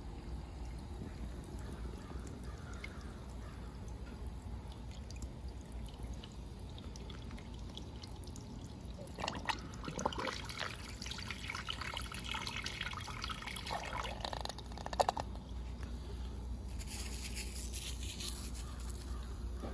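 Miniature plastic toilet flushing: a click about nine seconds in, then water trickling and gurgling for several seconds, with a sharp knock near fifteen seconds and a higher hiss near the end.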